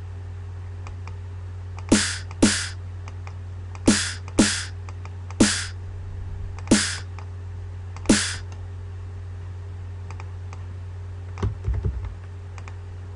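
Electro snare drum sample in FL Studio sounding one hit at a time as notes are placed in the piano roll: seven single snare hits at uneven gaps over the first eight seconds. A few soft knocks follow near the end, over a steady low hum.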